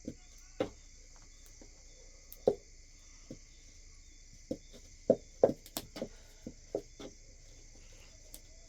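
Steady high insect chorus, crickets by their sound, with irregular sharp taps or knocks scattered over it, a cluster of the loudest about five seconds in.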